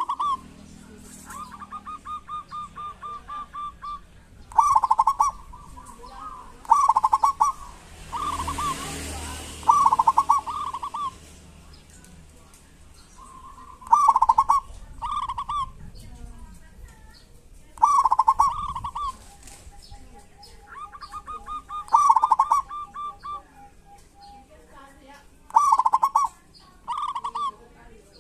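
Local zebra dove (perkutut) calling: its kerot and bekur calls, short loud notes every couple of seconds mixed with fast stuttering trills of even, rapid notes.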